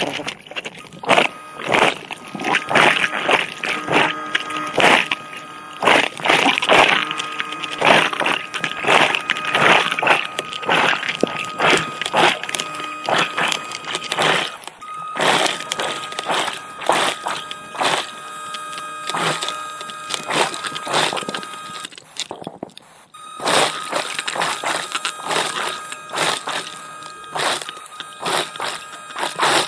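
Underwater scooter (diver propulsion vehicle) motor whining at a steady pitch, heard underwater with irregular crackling clicks over it. The whine drops out briefly about halfway through and again for a second or so about two-thirds through.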